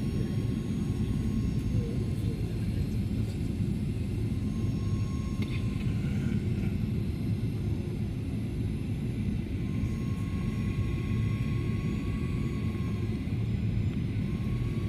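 Steady rumble of a jet airliner's engines and rushing air, heard from inside the passenger cabin.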